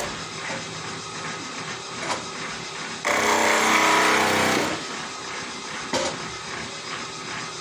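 Table saw running with a sanding disc on its arbor, spinning freely most of the time. From about three to nearly five seconds in, the edge of a wooden cutting board is pressed against the disc and the sound grows loud and rough. There are two brief knocks, about two seconds in and near six seconds.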